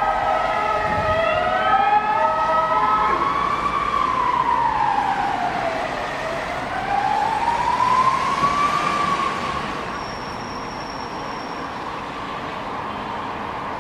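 Emergency vehicle siren in a slow wail, each rise and fall in pitch taking several seconds, with other siren tones overlapping in the first few seconds. About ten seconds in, the wail fades and steady street noise remains.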